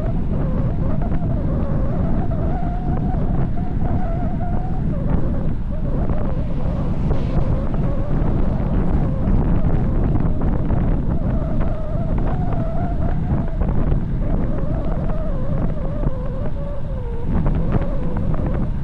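Heavy wind buffeting the microphone of a bicycle descending at high speed, with a wavering whine running under it.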